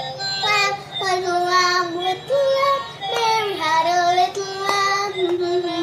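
Toy fire truck's built-in sound chip playing a sung children's song: a high, child-like voice over a thin electronic melody with held notes.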